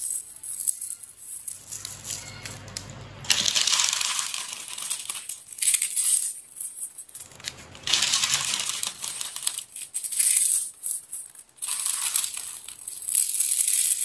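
Lay's potato chips crunched and crumbled by hand, in three crackly bursts lasting a few seconds each.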